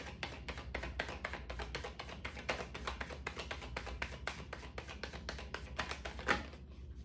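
Tarot deck being shuffled by hand, cards dropping from one hand into the other in a rapid run of soft clicks, with one louder tap about six seconds in before the shuffling eases off near the end.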